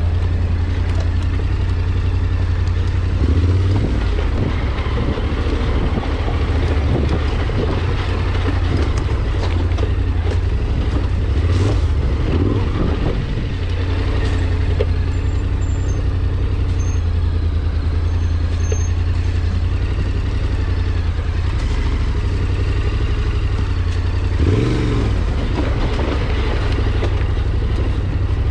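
A motor vehicle's engine running steadily at low revs, with a few knocks and rattles from the vehicle.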